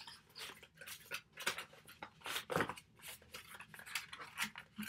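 Cardboard and plastic packaging being handled and pulled apart, a run of quick, irregular crinkles and scrapes as a small boxed device is unpacked.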